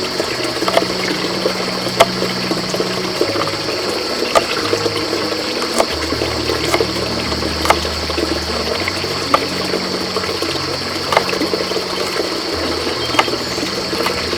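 Running, splashing water with scattered sharp clicks, over soft background music of held low notes that change every second or so.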